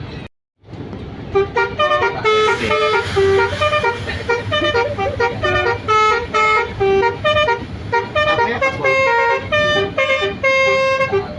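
Multi-tone basuri telolet horn on a PO Haryanto bus playing a tune in rapid short notes that step up and down in pitch. The sound drops out briefly just after the start.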